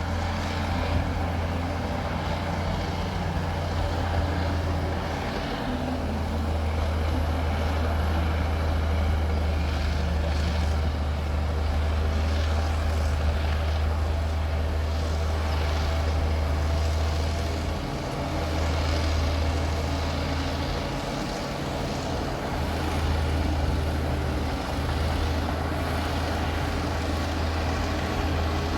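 Diesel engine of a bulldozer running steadily at work, a continuous low drone with a couple of brief dips in its low note.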